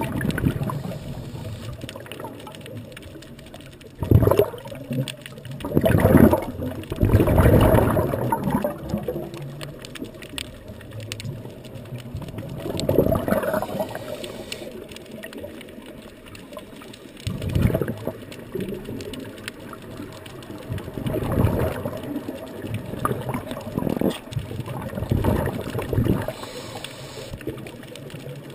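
Scuba regulator breathing underwater: irregular rushes of exhaled bubbles every few seconds, with a quieter steady hiss between them.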